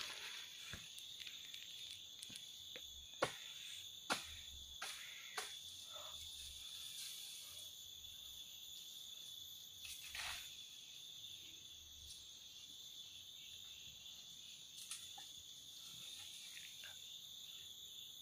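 Steady chorus of insects, a continuous high drone, with a few faint clicks and snaps scattered through and a brief rustle about ten seconds in.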